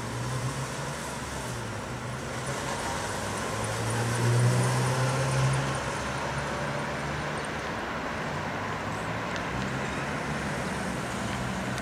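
Road traffic noise heard from a moving car: a steady rush of engine and tyre noise, swelling louder for a second or two about four seconds in.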